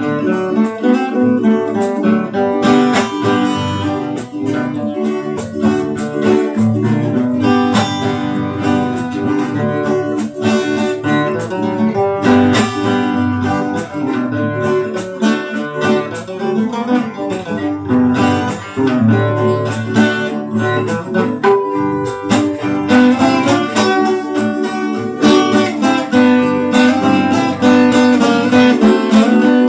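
Two acoustic guitars playing an instrumental piece together, with a steady stream of picked notes throughout.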